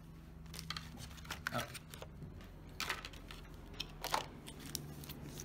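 Trading cards and a foil booster pack being handled: a scattering of light clicks and snaps, the sharpest about four seconds in, over a steady low hum.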